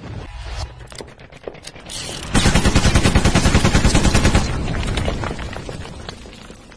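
Machine-gun fire sound effect: a few scattered shots, then a rapid burst of fire lasting about two seconds from roughly two and a half seconds in, trailing off near the end.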